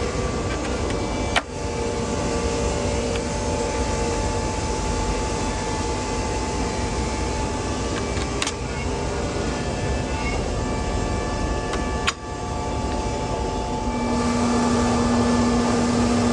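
Sawmill running steadily as it cuts through a walnut log. Near the end a new low steady hum comes in and the sound gets a little louder.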